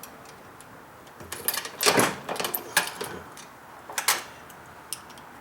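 Metallic clicks and clatter from a Dillon 550B progressive reloading press being worked at the bullet-seating stage on a dummy 9mm round. There is a run of rattling clicks about a second and a half in with the sharpest near two seconds, and another sharp click near four seconds.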